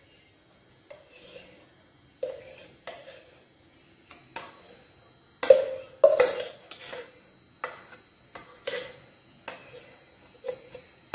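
A metal spoon scraping and knocking against a steel vessel as a thick mashed mixture is scooped out into a glass. About a dozen short, sharp clinks come at irregular intervals, the loudest about halfway through.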